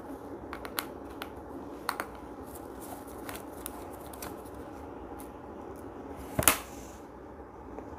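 Faint small clicks and ticks of a precision screwdriver turning a T5 Torx screw out of a laptop's metal base, with one sharper click near the end, over low steady room noise.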